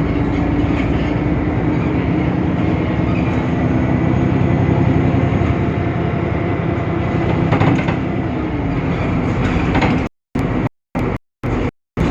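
Temsa Avenue LF city bus running, its DAF PR 228 diesel giving a steady low hum under rolling and rattling noise. About ten seconds in, the sound starts cutting out to dead silence several times in quick succession.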